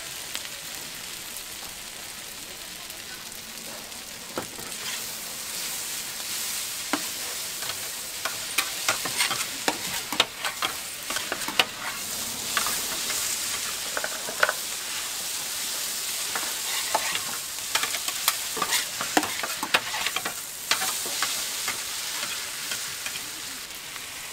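Flat noodles with bean sprouts and scallions sizzling on a flat steel griddle, a steady hiss, while a metal scraper stirs and scrapes them against the plate, giving many sharp clicks and clatters through the middle of the stretch.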